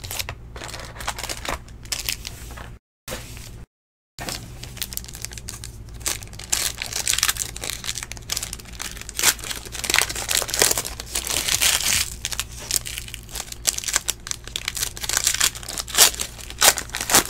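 Foil trading-card pack wrapper crinkling and tearing as it is opened and worked by hand, an irregular crackle with a steady low hum underneath. The audio drops out to dead silence twice, briefly, about three and four seconds in.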